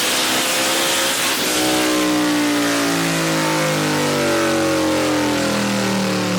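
Race car engine running hard, its pitch shifting about a second and a half in and then slowly falling.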